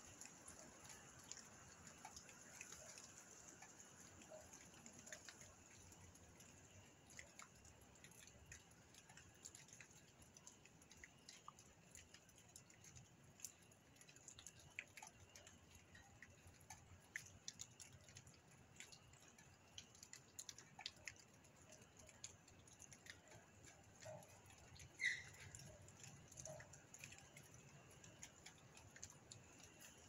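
Near silence with faint, scattered ticks and patters, and one brief louder squeak-like click about 25 seconds in.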